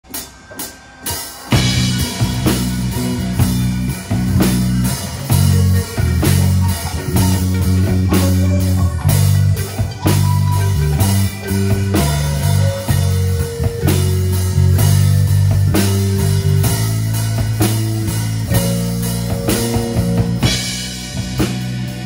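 Live synth-pop band playing an instrumental passage: a few sharp drum hits at first, then about a second and a half in the full band comes in with a stepping electric bass line, drum kit and keyboard.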